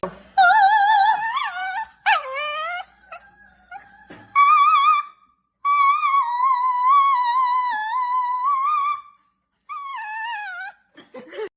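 A dog howling in a series of high, wavering notes, the longest held for about three seconds.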